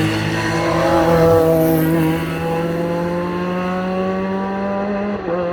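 GT3 race cars at speed: one passes loudly about a second in, then an engine pulls hard through a gear, its pitch rising steadily, and shifts up near the end with a sudden drop in pitch.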